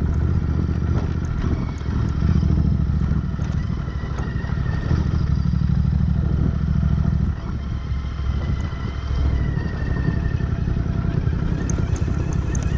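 Royal Enfield Interceptor 650's parallel-twin engine running at low revs in gear down a rocky dirt trail, with clatter from the bike over loose stones. The engine note eases slightly about seven seconds in.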